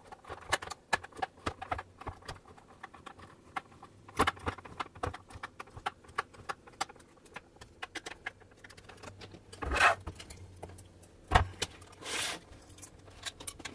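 Screwdriver working screws in a sewing machine's sheet-metal bottom plate: many small metallic clicks and ticks. Near the end come a louder rustle, a sharp knock and a short scrape as the machine is handled.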